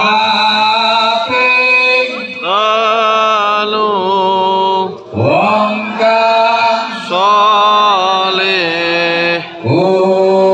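Shalawat, devotional Arabic praise of the Prophet, chanted by a lead voice through loudspeakers. The voice holds long ornamented notes that bend and glide, with short breaks for breath every second or two.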